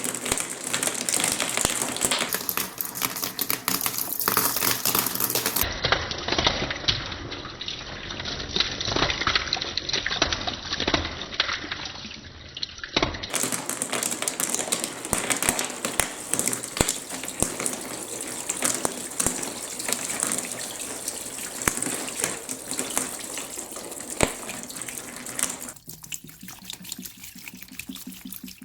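Water gushing and splashing down a plastic building-block marble-run course, with many small clicks and taps over the rush. Near the end the flow thins to a lighter trickle.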